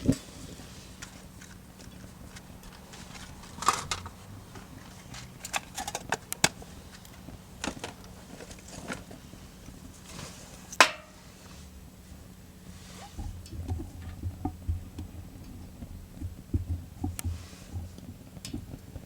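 Scattered clicks and knocks of things being handled, with one sharp click near the middle and low rumbling thumps in the last few seconds.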